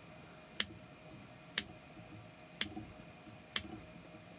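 Scissors snipping through the spun hair body of a bomber fly, four sharp snips about a second apart, trimming and rounding it to shape.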